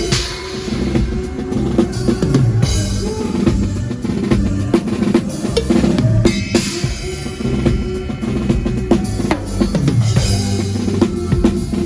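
A drum kit played live in a band groove, with bass drum and snare strokes and a cymbal crash every few seconds, over the band's pitched instruments.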